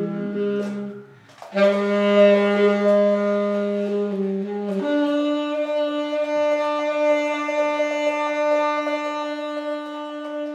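Saxophone playing long held low notes. There is a short break about a second in, then the note returns, and near five seconds it steps up to a higher note that is held.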